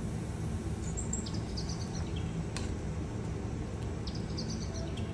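Saucepan of barley drink simmering on a gas burner: a steady low rumble, with one sharp click about halfway through as metal tongs touch the pan. Brief high bird chirps come about a second in and again near the end.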